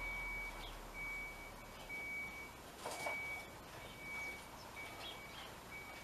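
A high, level-pitched beep repeating about once a second, each beep lasting about half a second, with a single brief rustle about three seconds in.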